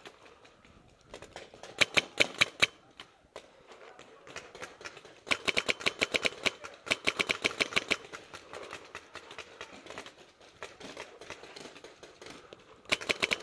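Paintball markers firing in rapid strings: a short burst of about five shots about two seconds in, a longer run of about twenty shots at some seven a second from about five to eight seconds, and another quick burst near the end.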